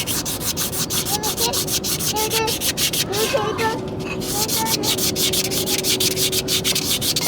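Rapid, steady back-and-forth scraping on the inside of a car's rear brake drum, worked by hand to roughen the surface and break its glaze so the brake grips.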